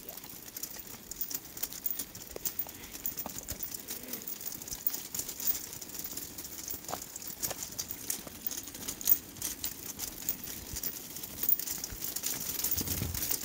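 Footsteps and the small wheels of a shopping trolley rolling over a tarmac path, a steady stream of small irregular clicks and rattles.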